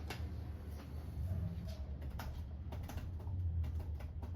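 Irregular light clicks of typing on a computer keyboard, over a steady low hum.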